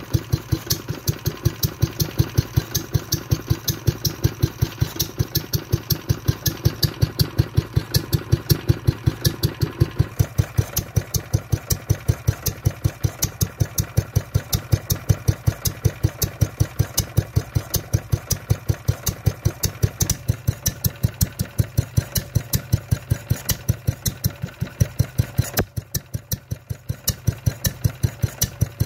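Wolseley WD8 air-cooled single-cylinder petrol stationary engine running steadily, with an even exhaust beat of about five firing strokes a second. It goes briefly quieter a few seconds before the end.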